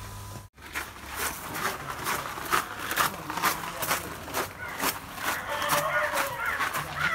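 Footsteps on a gravel path and the crackle of water-filled plastic bags of fish swinging as they are carried, in irregular strokes a few tenths of a second apart, with voices in the background. A steady hum breaks off about half a second in.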